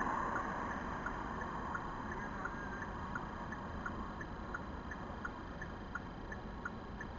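Car's turn-signal indicator clicking at an even pace, about three clicks a second, starting about two seconds in over a low steady hum with the vehicle stopped.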